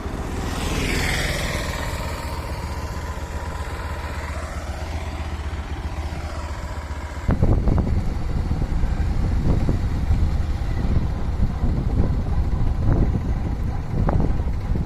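Motorcycle engine running steadily while riding along a road. The rumble becomes louder and rougher, with irregular surges, about seven seconds in.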